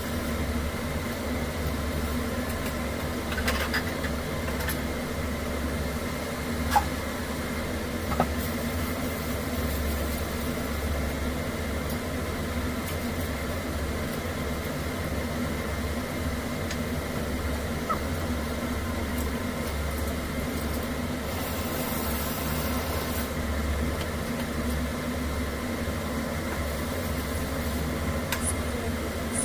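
Dishes being washed by hand at a kitchen sink: a few short clinks and knocks over a steady low mechanical hum.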